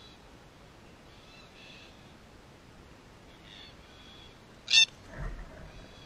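Soft bird calls repeat every second or two, then a red-tailed black cockatoo gives one loud, short, harsh screech about three-quarters through, followed right away by low wing flaps as it lands.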